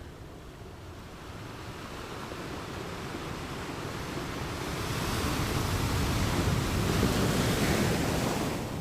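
Ocean waves on a shore: surf builds slowly, breaks and rushes in loudest in the later part, then falls away just before the end.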